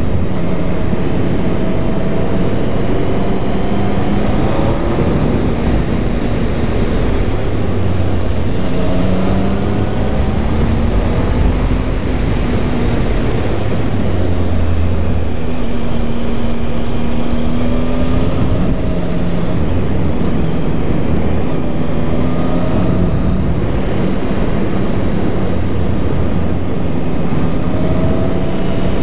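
Triumph Tiger 1050's three-cylinder engine running at speed through a series of bends, its pitch repeatedly rising and falling, under a heavy rush of wind on the microphone.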